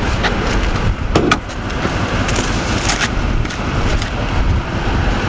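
Dodge Ram 1500 pickup engine idling steadily, with a few faint clicks. No horn blast or air-compressor sound comes through: the train horn's compressor is not kicking on, which the owners think is a bad relay or fuse.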